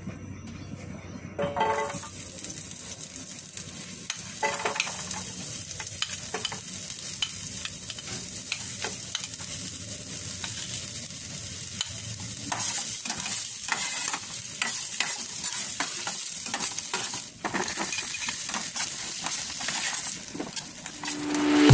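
Vegetables frying in hot oil in a stainless steel frying pan: a steady sizzle that picks up about a second and a half in, with a metal spatula stirring and scraping against the pan in many short clicks.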